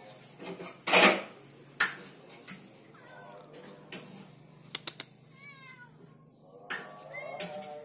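Domestic cat meowing, a few short calls that rise and fall in pitch, from about three seconds in. A brief loud rustle about a second in is the loudest sound.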